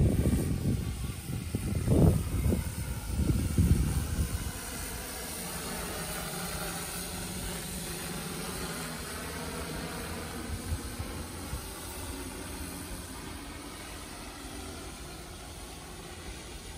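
Carbon-fibre hexacopter with a DJI E2000 propulsion system, its six propellers humming steadily in flight, the pitch of the hum sweeping as it passes close overhead. A few loud low rumbles come in the first four seconds.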